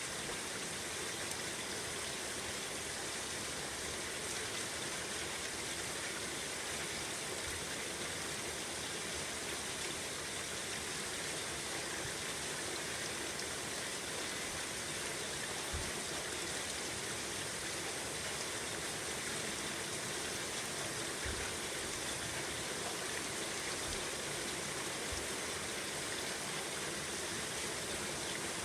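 Steady rain falling, an even hiss with no pauses, broken a few times by faint, short low thuds.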